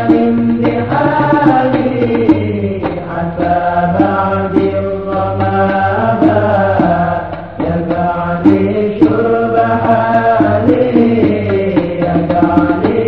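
Sholawat, an Islamic devotional song in Arabic: sung vocals in long, bending melodic lines over steady hand-percussion strokes.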